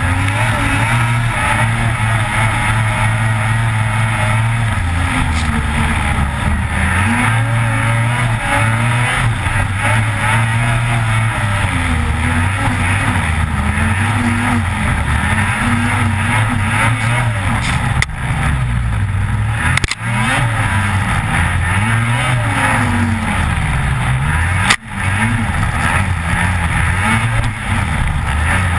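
A Lynx Rave RE 600 snowmobile's two-stroke 600 H.O. SDI engine running hard, its pitch rising and falling over and over as the throttle works over a bumpy trail, heard close from a sled-mounted camera. The sound cuts out for an instant a few times.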